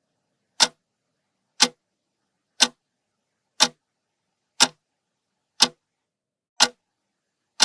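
Ticking-clock sound effect, one sharp tick a second, timing the pause for guessing the riddle's answer.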